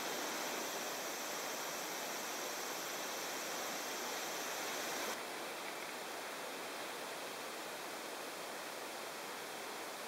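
Steady hiss of background noise with a faint high steady tone; a brighter high-pitched layer of the hiss cuts off suddenly about halfway through, and the sound gets slightly quieter.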